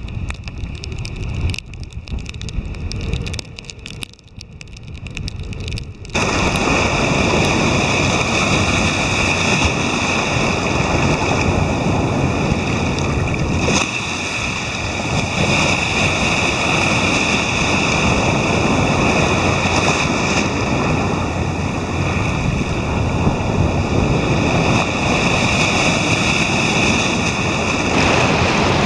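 Sea surf washing and breaking over seaweed-covered intertidal rock. For the first few seconds wind buffets the microphone and the sound is lower. About six seconds in it jumps to a louder, steady rush of surf.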